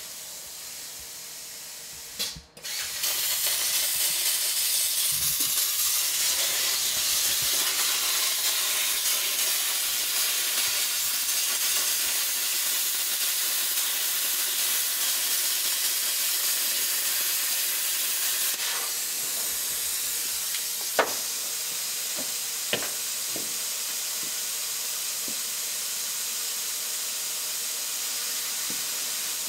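Welding arc hissing steadily, starting about three seconds in, with two sharp clicks in the second half.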